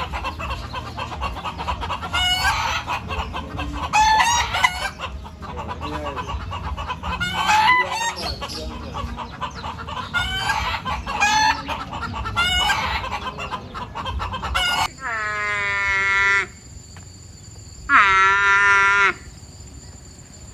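Chickens clucking, with roosters crowing several times. About fifteen seconds in, the sound cuts to a different animal giving two long calls of about a second and a half each.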